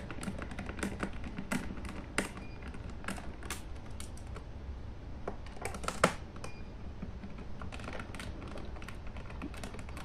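Irregular light clicks and taps of a flathead screwdriver working screws out of a laptop's plastic bottom cover, with sharper knocks about two and six seconds in.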